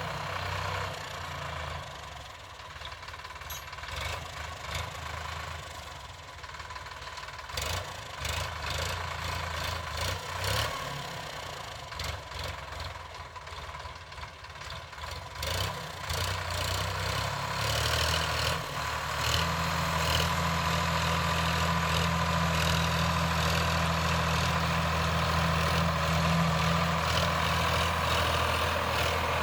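Sonalika DI 745 III tractor's diesel engine running, uneven at first and then louder and steady from a little past halfway.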